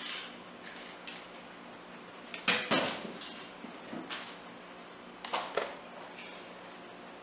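A few sharp knocks and clinks, the loudest about two and a half seconds in, then a spatula knocking and scraping against a glass mixing bowl of rice flour and tapioca starch as the mix is stirred.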